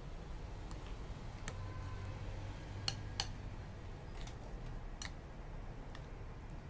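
Metal spoon stirring fish fillets into amok curry paste in a ceramic bowl: a few scattered light clicks as the spoon knocks the bowl, over a low steady hum.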